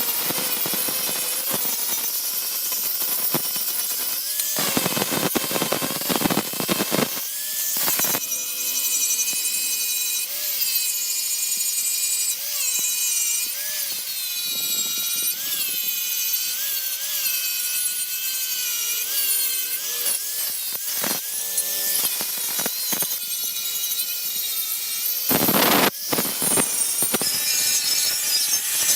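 A tool cutting or grinding the steel head of an antique hoe, a steady rasping with a ringing squeal that wavers in pitch. For a stretch in the middle the squeal dips in a rhythm of a little under once a second, and a harsher, noisier burst comes near the end.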